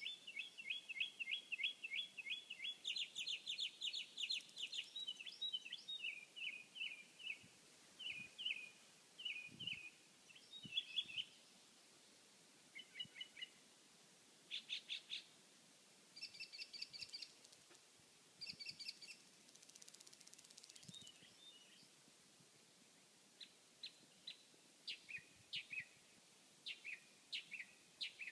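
A bird singing: quick runs of repeated chirping notes and trills, in varied phrases separated by short pauses.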